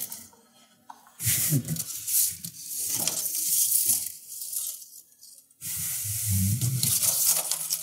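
Self-adhesive RV wall seam tape being peeled from its backing and pressed down along a wall-panel seam. There is a hissing, tearing peel about a second and a half in, and a longer one from about six seconds on.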